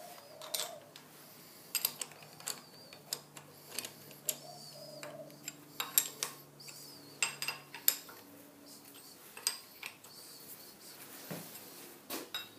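Steel hex key clicking and clinking in the socket-head cap screws as aluminium soft jaws are bolted onto a Kurt machine vise: irregular light metal taps and ratchety clicks.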